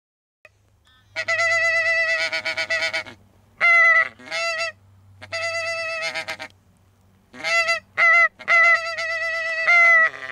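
Geese honking: runs of quick, rapid honks on one steady pitch, in about half a dozen bursts that start about a second in.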